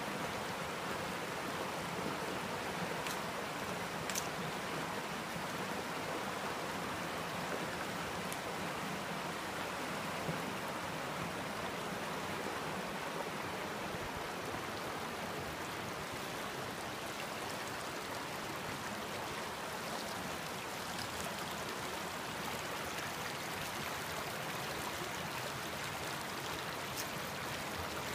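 Creek water running over rocks in a steady, even rush.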